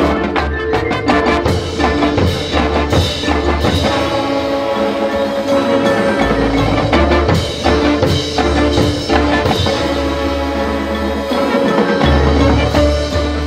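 Marching band playing: brass and woodwinds holding chords over a front ensemble of marimbas and other mallet percussion, with drum strikes and a deep bass line.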